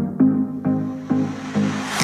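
Background electronic music: a steady pattern of repeated keyboard notes, about two a second, with a swelling whoosh building near the end.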